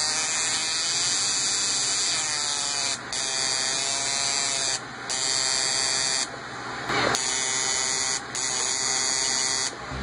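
Ignition coil driven by a Zapper ignition tester, firing rapid sparks across a test spark gap: a steady high-pitched electric buzz, briefly interrupted about five times.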